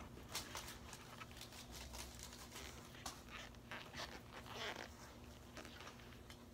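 Rubber sole of one Adidas Gazelle indoor soccer shoe rubbing and scuffing against the other shoe's upper: a run of faint, irregular scuffs and clicks, with a longer scrape about four and a half seconds in.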